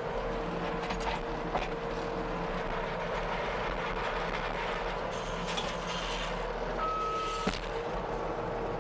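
Skid steer's engine running steadily with a constant whine, heard from inside the cab. Two bursts of hiss come about five and seven seconds in, with a brief high tone and a click near the end.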